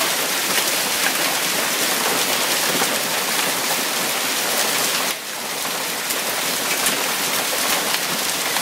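Hail and heavy rain pelting down: a dense, steady hiss with many sharp separate hits of hailstones striking surfaces. It dips for a moment about five seconds in, then carries on.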